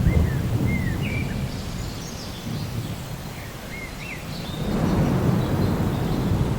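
Rolling thunder over steady rain. The rumble eases off after the start and swells again about five seconds in, while a bird calls in a run of short chirps during the first four seconds.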